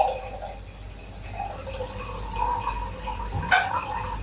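Water being poured into a vessel, with a faint tone that rises as it fills, and a single clink about three and a half seconds in.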